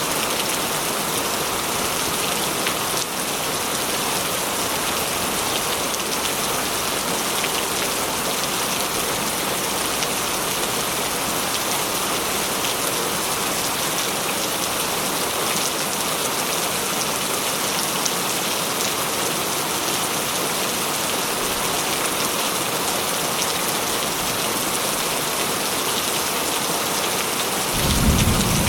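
Steady rain falling and splashing, an even hiss with no break. Near the end a low rumble of thunder sets in.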